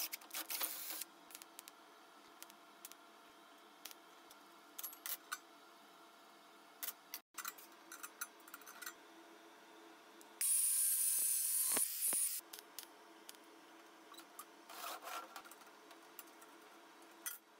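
Stainless-steel sheet parts, rod and wire mesh being handled and fitted, giving scattered light metal clicks and knocks. About two-thirds of the way in comes a loud hiss lasting about two seconds.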